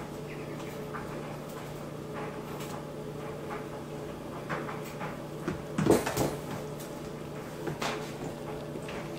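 Hooves of newborn goat kids tapping and scuffling on a wooden floor as they tussle over a stuffed toy, with a louder flurry of knocks about six seconds in and another knock near the end, over a steady low hum.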